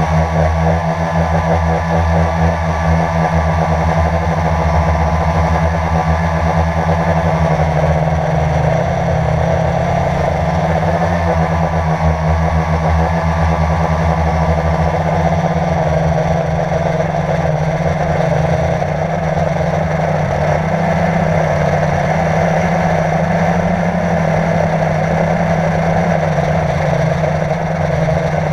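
Quadcopter drone's electric motors and propellers whirring loudly, heard close up from the drone's own camera. The hum shifts pitch about eight seconds in and then wavers up and down as the drone climbs.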